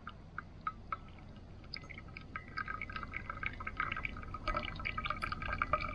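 Hot water poured from a small camping kettle into a paper coffee filter set on a steel vacuum flask. It starts as separate drips a few times a second, then becomes a denser trickle from about two seconds in.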